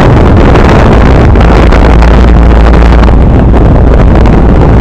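Carrier 38BRC outdoor air-conditioner condensing unit running very loud, a steady roar with a deep rumble underneath that comes in abruptly. The owner puts the loudness down to the compressor taking in liquid refrigerant instead of vapour.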